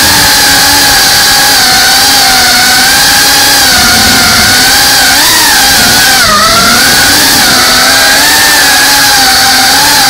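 FPV drone's brushless motors whining steadily, the pitch wavering up and down with throttle and dipping briefly about six seconds in, over loud rushing propeller wash, heard from the drone's own onboard camera.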